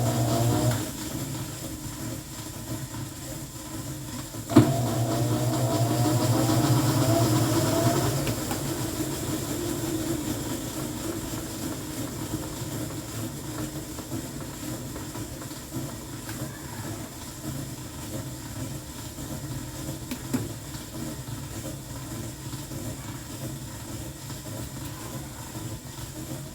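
Washing machine motor on the spin cycle. The motor hum cuts out, a sharp click comes a few seconds later, then the motor starts again with a rising whine as the drum spins up and settles into a steady whir.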